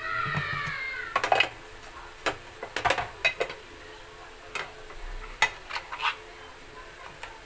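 A domestic cat meows once, a long call that rises and then falls away over the first second. Irregular sharp clicks and pops follow through the rest, the loudest just after the meow.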